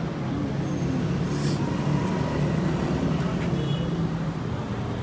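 Steady low rumble of street traffic with indistinct voices in the background, and a brief hiss about a second and a half in.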